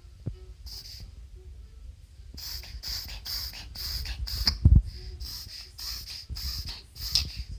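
Shih tzu making a strange noise: a run of short, raspy, noisy breaths about two a second, starting a couple of seconds in. One loud low thump partway through.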